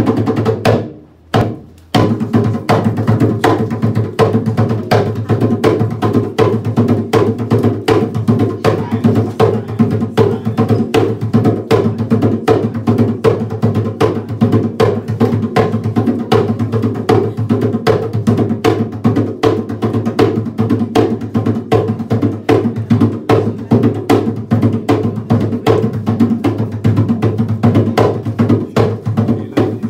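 Hand drums played live in a fast, driving rhythm for dance, with a brief break about a second in before the beat comes back in.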